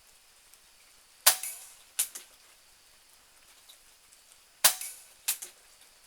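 Benjamin Marauder .22 PCP air pistol firing twice, about three and a half seconds apart. Each sharp crack is followed within a second by a couple of fainter clicks.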